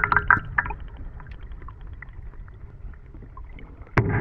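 Underwater sound just below the surface: a fizzing crackle of air bubbles that dies away over the first second, then a dull low rumble with scattered faint ticks. A sharp click comes near the end.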